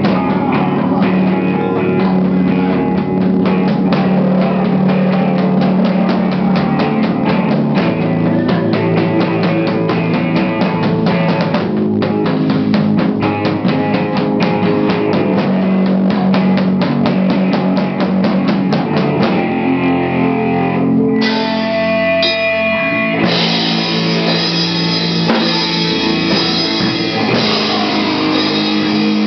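A stoner rock band playing live, with electric guitar and a drum kit. About two-thirds through, the sound thins to a few held guitar notes for a couple of seconds, then the full band crashes back in.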